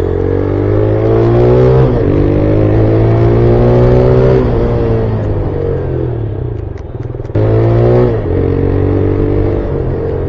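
Motorcycle engine under acceleration while riding, its pitch climbing and shifting up a gear about two seconds in, then dropping as the throttle eases after about four and a half seconds. The throttle is snapped open again at about seven seconds, and the engine then winds down.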